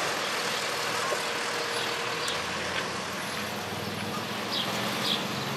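Street traffic, with a truck's engine running close by; its low hum grows louder about two seconds in.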